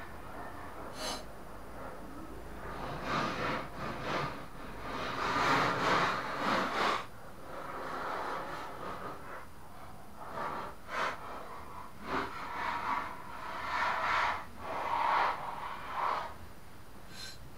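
Compacted grass clippings being scraped and pulled out of the underside of a lawn mower deck: irregular scraping and rustling strokes, with a few sharp clicks.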